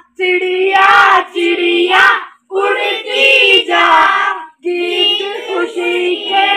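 A group of children singing an action song together in unison, in phrases of about two seconds with brief breaks between them.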